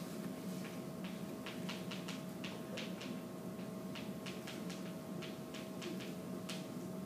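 Chalk tapping and scratching on a chalkboard in short, irregular strokes, about two or three a second, over a steady room hum.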